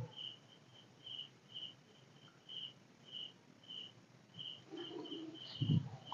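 Cricket chirping faintly in short high chirps at one pitch, about two a second, with a brief louder low noise near the end.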